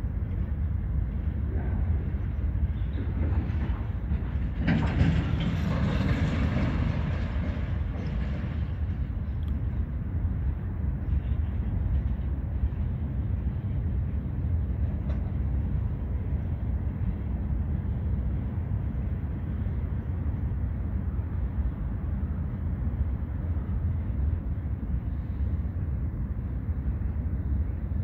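Freight train of loaded flatcars rolling slowly past, a steady low rumble of wheels on rail, with a louder, hissier swell from about five to nine seconds in.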